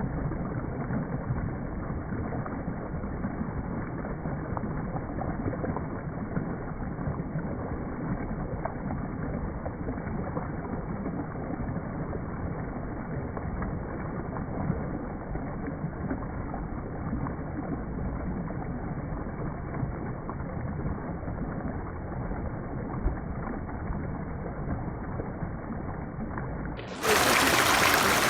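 Water in a pothole heard in slowed-down playback: a steady, muffled low rushing with no high end. About a second before the end it switches abruptly to a louder, full-range rushing as the playback returns to normal speed.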